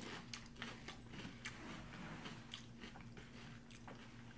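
Crunchy honey oat cereal being chewed and bitten: irregular short crunches and clicks, faint against a steady low hum.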